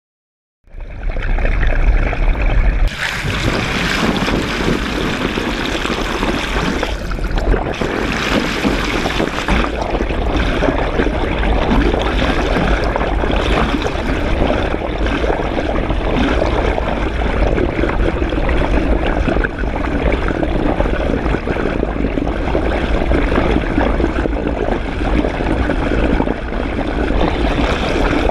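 Underwater water noise from a camera held just below the surface: a steady rush and trickle of water with a strong deep rumble, starting about half a second in.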